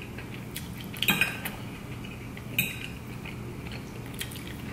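Metal fork scraping and clinking against a plate while picking up food, a few sharp clinks with the loudest about a second in and another around two and a half seconds.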